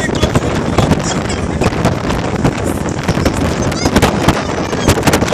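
Wind buffeting the microphone on the open deck of a moving ferry: a loud, steady rush broken by many quick crackles and thumps.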